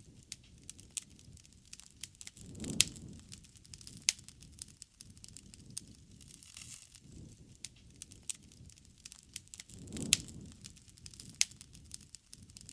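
Wood campfire crackling, with sharp pops and snaps scattered irregularly throughout. Two soft low rushes of flame come about three seconds in and again about ten seconds in, each with a loud snap.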